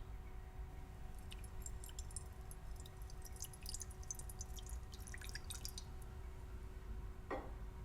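Light crackling and popping of food cooking in a pan for several seconds, then a single short knock near the end.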